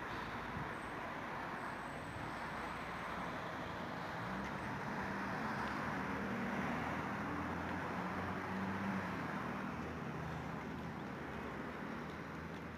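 Road traffic noise: a steady hiss of tyres and engines, with one vehicle's engine hum growing louder through the middle and then fading as it passes.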